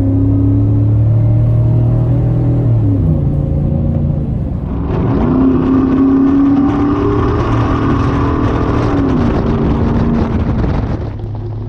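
Chevy Silverado's 5.3 L V8 through a Flowmaster Outlaw cat-back exhaust, heard from inside the cab with the windows up, under throttle twice. The first pull eases off about three seconds in. A second, harder pull runs from about five seconds to ten seconds before the engine drops back.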